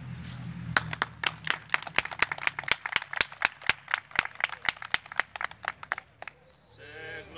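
Hands clapping in a steady rhythm, about five claps a second, stopping about six seconds in.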